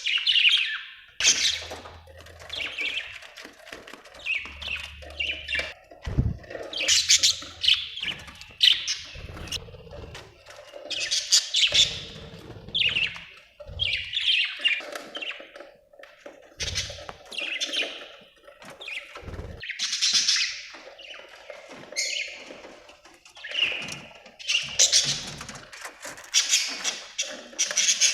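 Budgerigars chirping and squawking in quick, overlapping bursts, with a few soft low thumps among them.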